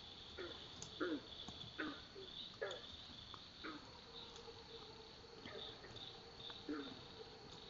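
Beavers giving a string of short whining calls that fall in pitch, about ten across several seconds, over a steady high-pitched insect chorus.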